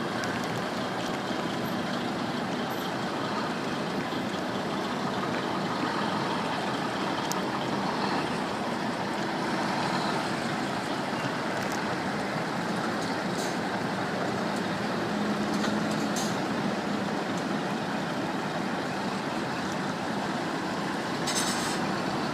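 Motorway traffic with a heavy lorry's engine running steadily, and a short hiss near the end.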